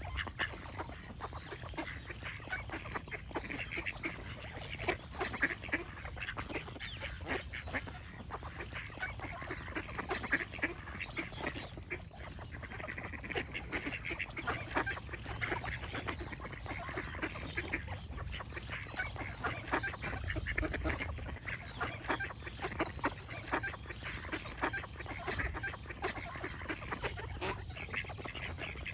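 A flock of ducks quacking, many short calls overlapping without a break.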